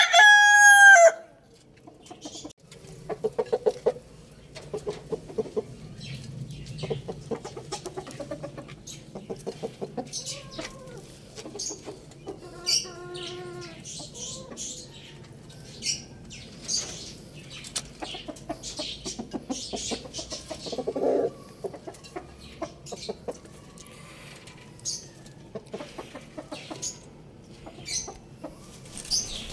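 Rooster crowing, the loud drawn-out end of a crow falling off in the first second, followed by chickens clucking in quick rattling runs with a few shorter calls.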